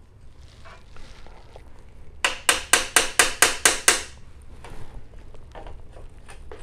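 Small mallet striking the seized piston valve of a vintage Slingerland single-piston brass bugle, about eight sharp, ringing taps in quick succession, roughly four or five a second, to knock the corroded piston loose. A few faint handling clicks come before and after.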